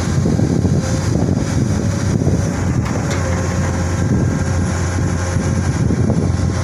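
Komatsu long-arm hydraulic excavator's diesel engine running steadily under working load as the boom sweeps the bucket along the slope: a constant low drone.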